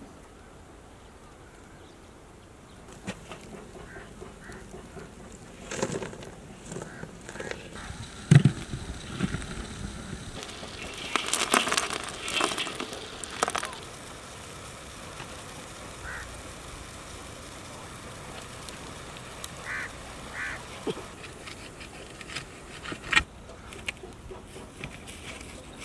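Glowing charcoal tipped from a metal scoop onto a metal pot lid, heaped on top for dum cooking: a few seconds of rattling and scraping near the middle. Scattered knocks and a few short bird calls elsewhere.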